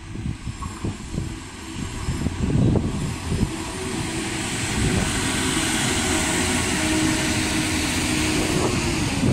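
Irish Rail 22000 Class InterCity diesel multiple unit approaching and running past along the platform. The sound of its wheels and engines grows louder over the first five seconds and then holds as a steady loud rush with a steady hum.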